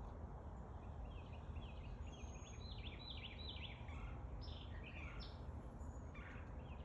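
Faint songbird chirping: a few runs of quick, short notes over a steady outdoor background hiss.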